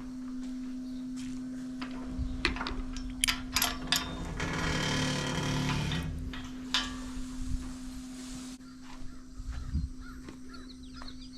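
A steady low hum with scattered clicks and knocks, and a few seconds of hiss in the middle; birds start chirping near the end.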